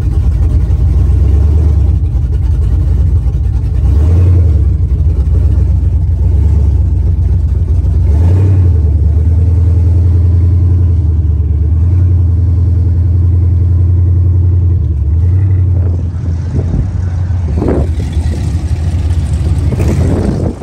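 An old car's engine running loud at low speed, heard from inside the cabin, with brief swells in level about four and eight seconds in.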